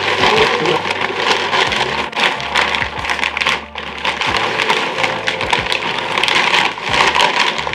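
Fabric of a wing-foil wing, its leading edge and canopy, being gripped, pulled and shifted by hand: continuous loud rustling and crinkling with many small crackles.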